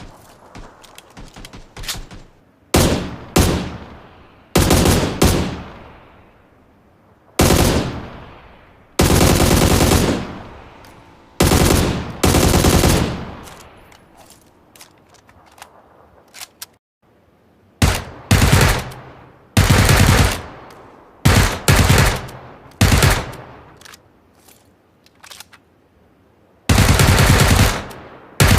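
Gunfire sound effects: repeated bursts of rapid automatic fire, each lasting about a second with an echoing tail, separated by short pauses, with a few scattered single shots near the start.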